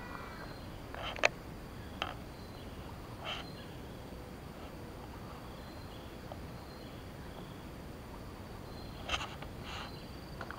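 Faint outdoor ambience with insects calling steadily, broken by a few short clicks, the loudest about a second in.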